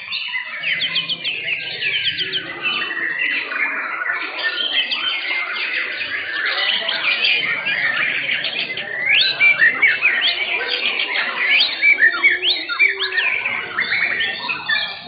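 Several white-rumped shamas singing at once, their songs overlapping in a dense run of whistles and chirps, louder in the second half.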